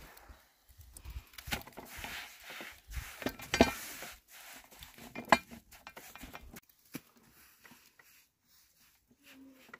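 Scattered clinks and knocks of cooking utensils and dishes, a few of them ringing briefly, thinning out to near quiet in the second half.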